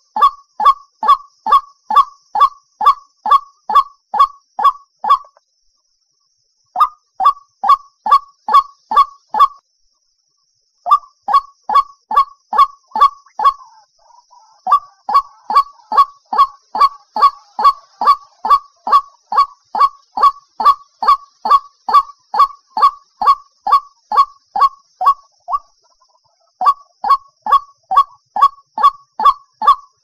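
White-breasted waterhen calling: a loud, honking 'ruak' note repeated about two to three times a second in long runs, broken by short pauses.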